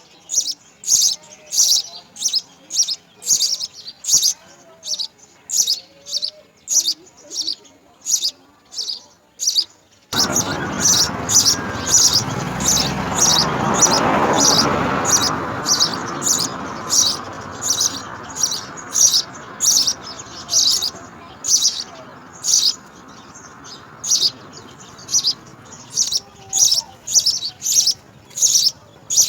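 House sparrow chirping over and over, about two short high chirps a second. About a third of the way in a rushing noise starts suddenly, swells and then slowly fades under the chirps.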